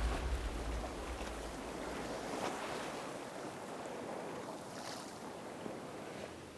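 Ocean surf washing onto the beach, a steady rushing hiss with a few gentle swells, with some wind on the microphone. The tail of background music fades out in the first second or so.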